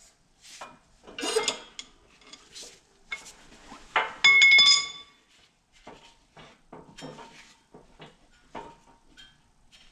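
Steel parts and spacers clanking and clinking on a hydraulic shop press as they are handled and repositioned. The loudest clank comes about four seconds in and rings briefly, followed by lighter clicks.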